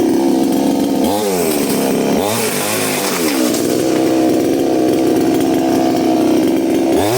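Engine running hard at high revs, its pitch dropping sharply and climbing straight back about a second in, twice more around two to three seconds in, and again at the end.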